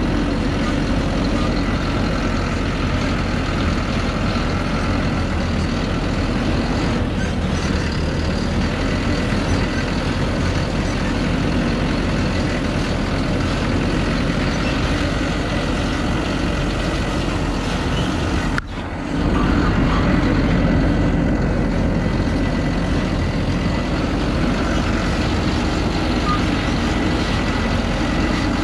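Truck engine running as the truck crawls over a rough, rocky dirt track, with a thin steady whine over the engine. About two-thirds of the way through the sound drops out for a moment and comes back louder.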